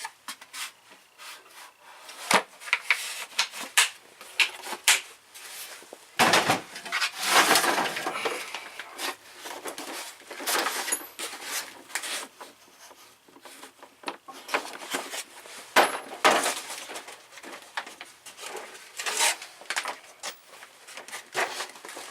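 Tools being handled and rummaged through in a tool box: irregular clicks, clatter and rubbing, busiest about a third of the way in.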